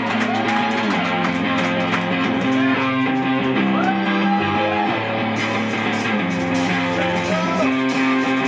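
Live rock band playing, guitars to the fore, with sustained notes and bending lead lines.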